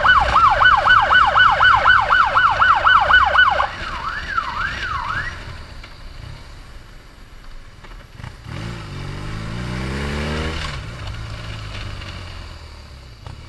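Medic motorcycle's electronic siren on a fast yelp, sweeping up and down about three times a second; it cuts off a few seconds in, followed by a few slower wails that fade. Later the motorcycle engine revs up rising in pitch for a couple of seconds over steady engine and road noise.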